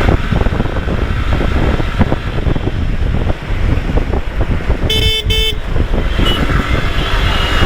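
Wind and road noise on a moving motorcycle, buffeting the microphone, with a vehicle horn giving two short toots about five seconds in.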